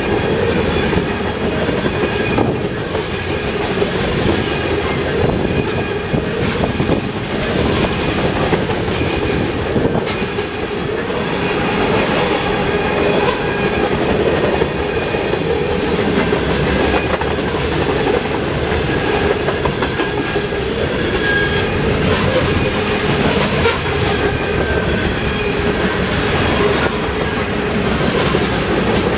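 Freight cars (covered hoppers and tank cars) rolling past on steel wheels: a steady, loud rumble with the clickety-clack of wheels over rail joints.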